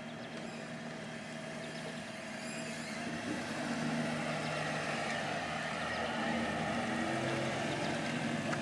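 1935 Auburn 851 Speedster's supercharged Lycoming straight-eight engine running at low speed as the car rolls up and passes, growing louder over the first few seconds as it comes close.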